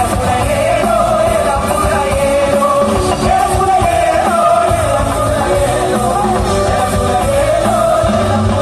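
Live band playing loud rock-style music: male vocals over drums and guitars, amplified through the stage sound system.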